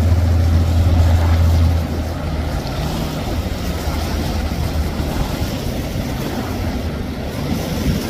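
Motorboat engine running with a steady low drone that drops off about two seconds in, over a constant rushing noise.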